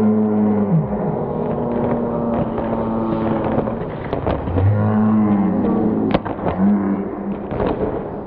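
Spectators shouting long, drawn-out cheers for sprinters, over a general crowd hubbub, with a few sharp claps or knocks near the end.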